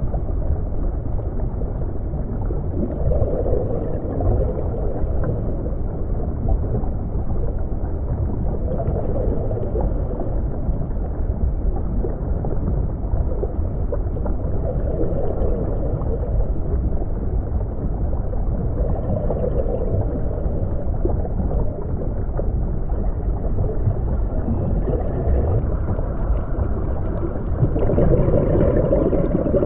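Underwater ambience: a steady low rumble with soft swells every few seconds, the strongest near the end.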